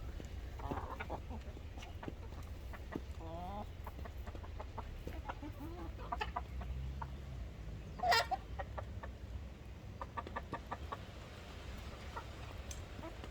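Chickens clucking, with scattered short calls and one louder squawk about eight seconds in, over a low steady rumble.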